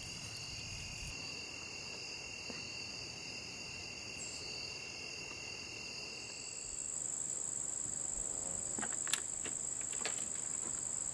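Chorus of insects singing in woodland, several steady high-pitched trills at once. About six seconds in, they give way to a single higher steady trill, with a few faint clicks near the end.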